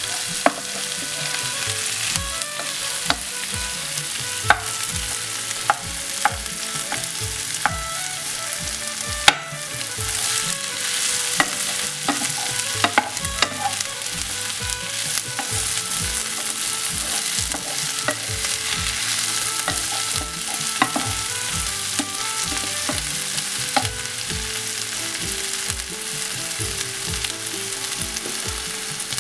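Diced potatoes and onion sizzling in ghee in a frying pan while a wooden spatula stirs them and presses the larger pieces, with irregular knocks of the spatula against the pan over a steady sizzle.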